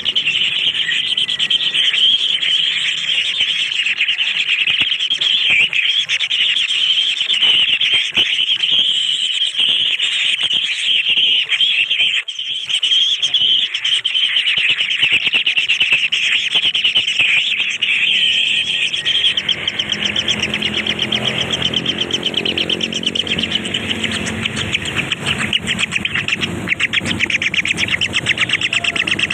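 Nestling birds begging: a dense, continuous, high-pitched chatter of rapid calls. A lower pitched sound joins in about two-thirds of the way through.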